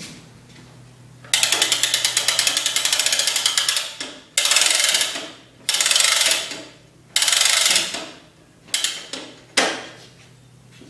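Ratcheting hand-crank starter on an old Briggs & Stratton push mower engine being wound by hand, rapid clicking in spells. There is one long spell of about three seconds, then three of about a second each, then two short ones near the end.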